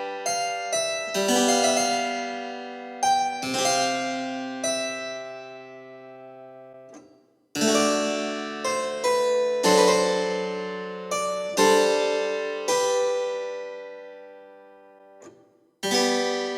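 Background music on a keyboard: slow struck chords that ring and fade, with two brief breaks between phrases.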